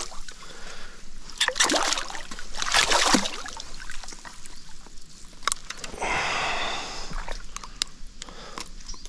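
Shallow water splashing and sloshing in a few short bursts, with scattered light clicks, as a freshly caught zander is handled at the water's edge.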